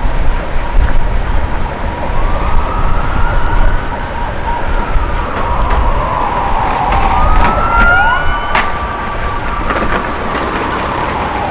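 Emergency vehicle siren wailing, its pitch rising and falling slowly, starting about two seconds in. Wind rumbles on the microphone through the first half.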